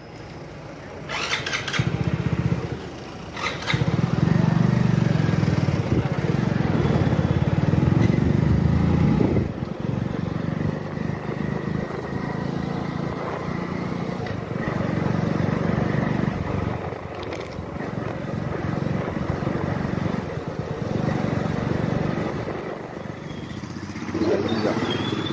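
A few sharp clicks, then a motorcycle running steadily as it is ridden along a road, its engine rising and easing in level.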